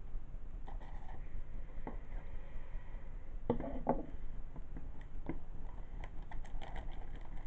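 Plastic shrink-wrap being picked at and peeled off a hard plastic DVD case: scattered light crinkles and clicks of handling, with a louder crackle about three and a half seconds in.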